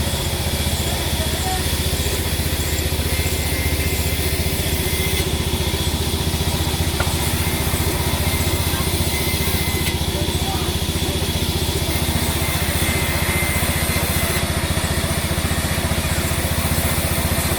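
An engine running steadily at a constant speed, with a fast, even low pulse.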